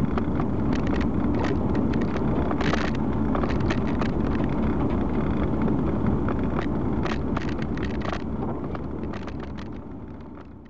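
Steady road and engine rumble inside a moving car's cabin, with scattered light clicks and knocks, fading out near the end.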